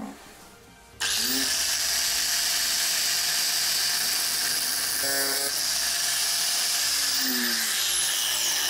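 Angle grinder with a cut-off disc spinning up about a second in with a rising whine, cutting through a copper threaded stud, then winding down near the end. A short knock comes at the very start.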